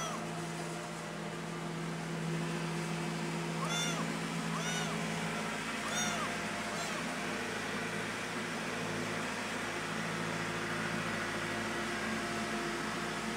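Young tabby kitten meowing loudly for its mother: short high cries that rise and fall, one at the start and three in quick succession about four to six seconds in. A steady low hum runs underneath.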